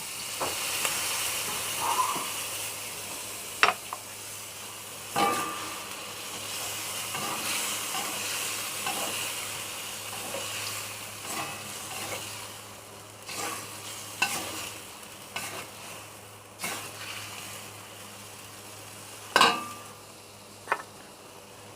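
Catfish pieces and curry paste sizzling in a hot pan just after hot water is added, with a spatula stirring and now and then knocking sharply against the pan. The sizzle is loudest in the first half, then settles.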